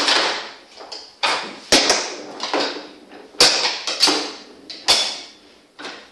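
Foosball game in play: the ball is struck by the plastic players and knocks off the table, giving sharp clacks at an irregular pace, roughly one or two a second.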